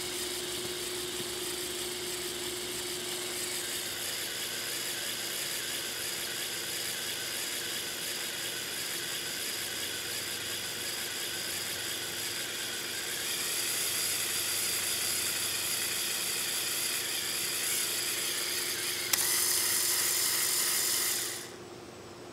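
Lego Technic 8258 crane truck's electric motor and plastic gear train whirring steadily as the crane boom moves. It grows louder about two-thirds of the way through, goes louder still after a sharp click near the end, then stops suddenly.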